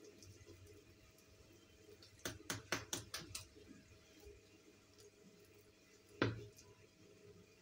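Light kitchen knocks: a quick run of about six clicks and taps, then a single louder thump a few seconds later.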